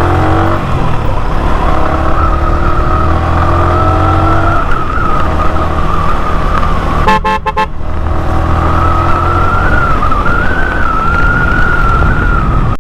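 Road vehicle engine running at speed, its pitch climbing as it accelerates, with a few short horn honks about seven seconds in.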